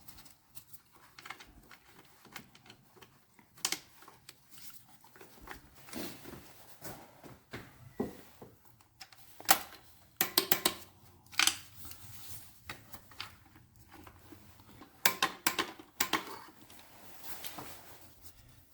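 Scattered clicks and light metallic taps of hand tools and metal parts while an engine bracket bolt is fitted. There are quicker runs of sharper clicks near the middle and again about three quarters of the way through.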